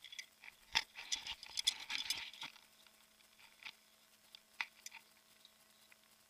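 Handling noise on an action camera's microphone: fabric and gear rubbing and clicking against it, a dense crackle for the first two and a half seconds, then only scattered clicks. A faint steady hum runs underneath.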